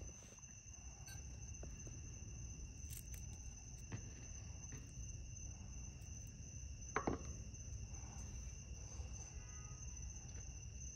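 Night insects, crickets or similar, keeping up a steady high-pitched trill with no break. There is a single light knock about seven seconds in.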